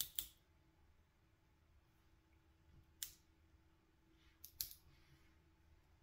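Plastic glow stick being bent in the hands, giving a few short sharp cracks as the glass vial inside snaps to activate it: one at the start, one about three seconds in, and a quick pair about a second and a half later.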